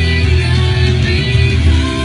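Music: a song with guitar and a singing voice over a heavy, steady bass.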